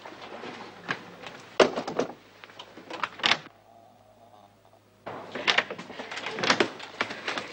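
Door sounds: a few separate knocks and clicks as a door is handled. After a short lull about five seconds in, there is a busy run of rustling, scuffing and small knocks.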